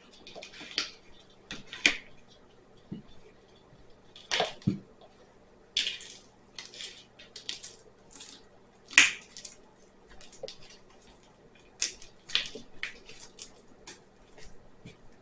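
Sticky homemade slime being squeezed and pulled apart by hand, making irregular short wet clicks and crackles, with a few louder snaps.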